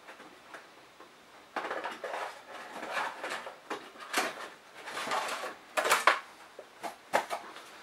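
A small cardboard accessory box being worked loose and pulled out from inside a CM Storm Stryker computer case: about a second and a half in, rustling and scraping start, with a few sharp knocks and rattles against the case.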